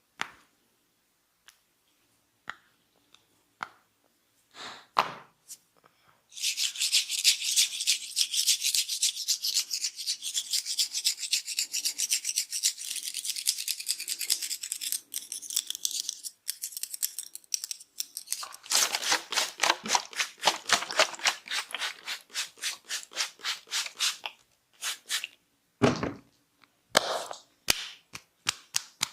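Fingers rubbing and scratching briskly through hair on the scalp during a head massage, a fast rasping in two long stretches. A few sharp clicks come before and after.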